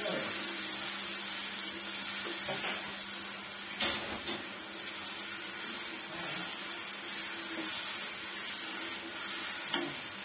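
Wooden spatula stirring sugar into hot milk in a metal wok, knocking against the pan a few times, the clearest about four seconds in and near the end, over a steady sizzle from the heating syrup.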